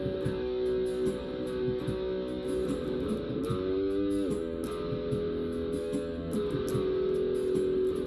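Guitar-led music: held, ringing guitar notes, with one group of notes bending up in pitch and back down about halfway through.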